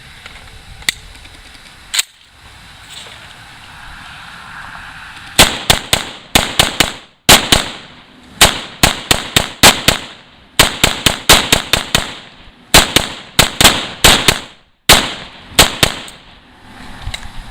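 AK-pattern rifle fired rapidly, about thirty shots in quick strings over some ten seconds, starting about five seconds in. A couple of sharp clicks come before the shooting.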